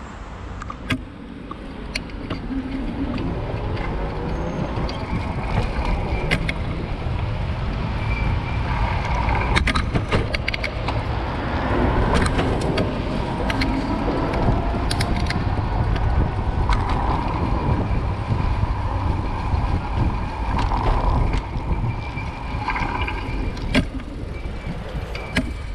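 City street traffic heard from a moving bicycle: cars passing close by with rising and falling engine and tyre tones over a heavy low rumble of wind on the microphone. Sharp clicks and knocks come now and then, most around ten seconds in and near the end.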